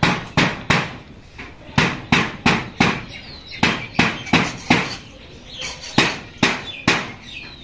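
Repeated sharp knocks, two or three a second, with a short lull about five seconds in.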